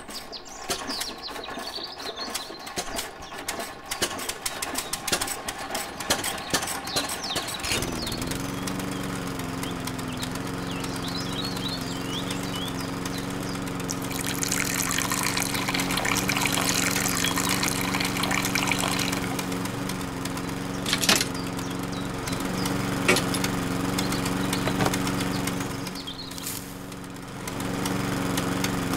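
Small electric motor inside a toy engine model switched on, starting about eight seconds in with a brief rising whine, then running with a steady hum as it turns a rubber-band belt drive on a toy crusher. Before it starts there are scattered clicks and taps from handling, and a hiss joins for a few seconds midway.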